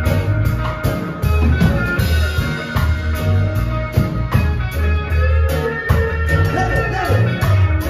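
Live band playing: electric and acoustic guitars over a drum kit keeping a steady beat, with a strong bass line underneath.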